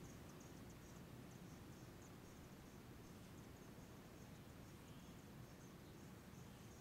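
Faint outdoor dawn ambience: small insects chirping in short, high, rapid trills that repeat irregularly, over a low steady rumble.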